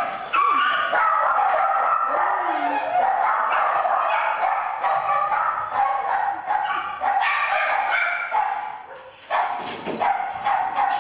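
Many kennelled dogs barking and yelping over one another in a continuous din, which dies down briefly about nine seconds in and then starts up again.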